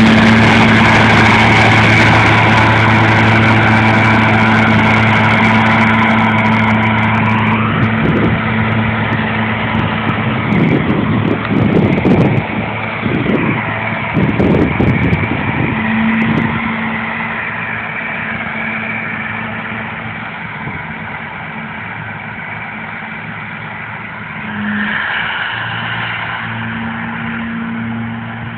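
John Deere 6330 tractor engine running steadily under load while driving a mower through grass. It is loud close by at first, then fades as the tractor moves away, with a brief swell about three-quarters of the way through.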